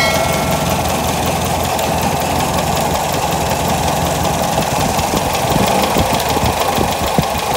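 Toyota 4K four-cylinder engine idling steadily, its ignition timing freshly set to 8 degrees.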